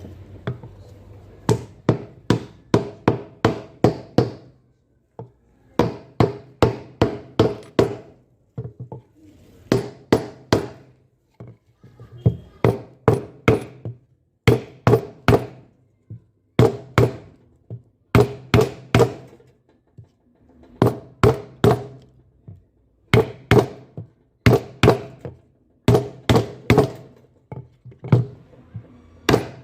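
Hammer blows on washing machine drum bearings, in quick bursts of three to six strikes with short pauses between them, each strike ringing briefly.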